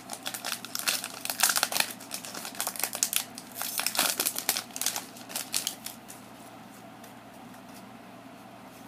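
Metallic foil wrapper of a Pokémon TCG Burning Shadows booster pack crinkling in the hands as it is opened. The crinkling stops about six seconds in.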